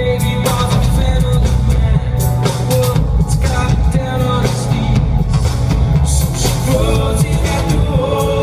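Synth-pop band playing live in an arena: a male lead vocal sung over drums, bass and synthesizer.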